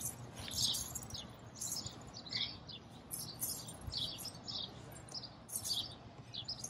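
Small birds chirping, short high calls repeating about twice a second.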